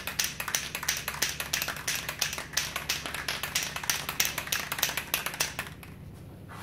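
Aerosol can of chain lube being shaken, its mixing ball rattling fast at about five clacks a second before stopping near the end.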